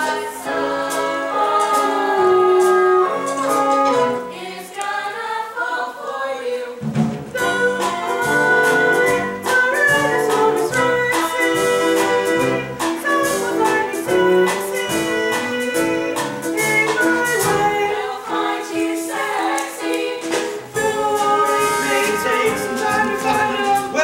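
Musical theatre song: instrumental accompaniment with a steady beat and singing voices, the bass and beat coming in about seven seconds in.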